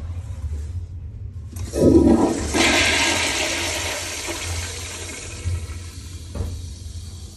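Vintage flushometer toilet flushing. A sudden loud rush of water starts about two seconds in, then water washes through the bowl and slowly fades.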